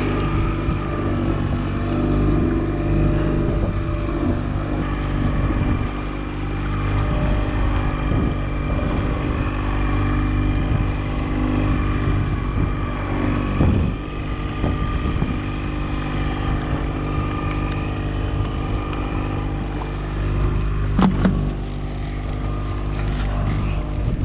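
Fishing boat's motor running steadily at trolling speed, holding one even pitch, with two brief knocks, one just past the middle and one near the end.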